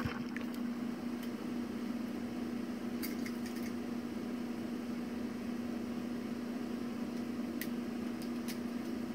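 A steady low hum, with a few faint clicks scattered through it, like small plastic parts being handled.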